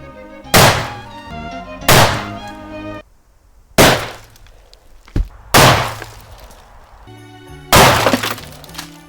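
Five loud shotgun shots, one to two seconds apart, with things breaking as they are hit, over background music.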